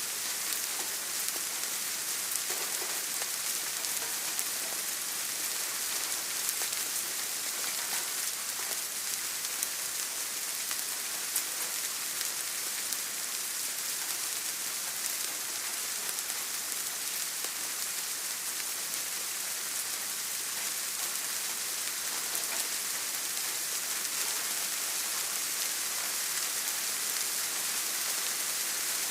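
Steady rain falling: a dense, even hiss with scattered sharper drop ticks, unchanging throughout.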